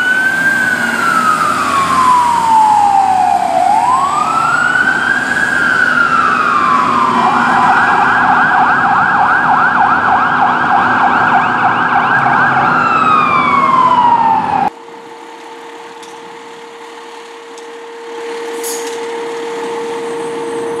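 Fire truck electronic siren wailing in slow rising and falling sweeps, switching to a fast yelp about seven seconds in, then back to the slow wail. It cuts off abruptly about fifteen seconds in, and a quieter steady tone follows as a second ladder truck pulls out, louder near the end.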